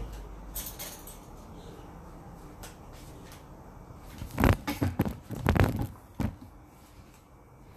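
Handling sounds while tasting a sweet potato: a cluster of sharp knocks and clatter about four to six seconds in, like a utensil against a dish.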